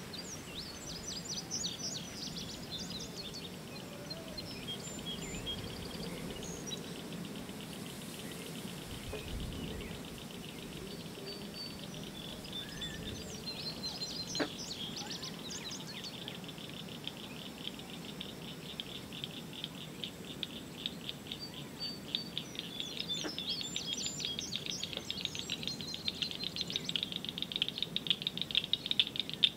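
Outdoor ambience of birds chirping and calling, with a low steady background hum. A rapid run of high chirps grows louder toward the end.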